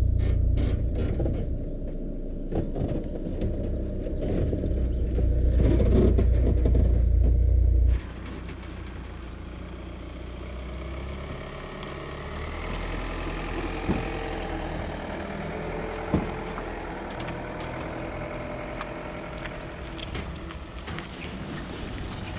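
A heavy low rumble that cuts off abruptly, then an SUV towing a boat on a trailer drives past on asphalt: engine and tyre noise swells as it nears, with a couple of sharp knocks from the rig as it goes by.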